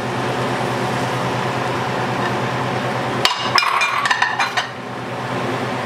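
Ceramic plate knocking and clinking against the rim of a stainless steel stockpot in a quick run of strikes about three seconds in, as diced eggplant is tipped and shaken off it into the pot, over a steady low hum.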